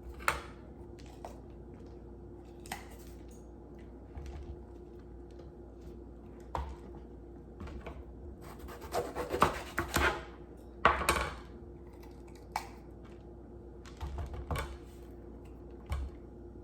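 Kitchen knife cutting and scraping open peppers on a cutting board to de-seed them: scattered taps and scrapes, busiest about nine to eleven seconds in, over a faint steady hum.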